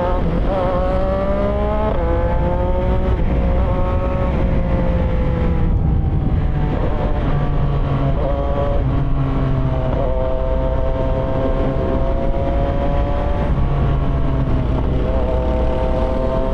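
CFMOTO 675SR-R's three-cylinder engine pulling hard through two upshifts, its pitch climbing and dropping back at each shift, then cruising at a fairly steady speed with small changes in throttle. Wind rushes over the helmet-mounted microphone.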